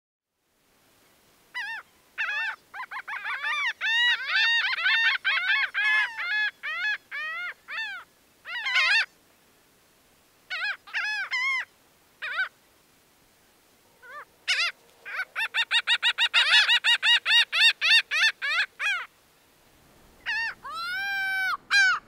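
Laughing gull giving its laughing call: fast runs of short 'ha' notes, each rising then falling in pitch, in bouts with short gaps, ending with a couple of longer drawn-out notes.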